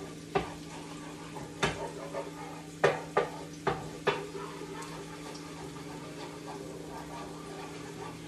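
Wooden spoon scraping and knocking against a frying pan while deglazing it with white wine, stirring up the browned bits. About six sharp knocks in the first half, then quieter stirring over a steady low hum.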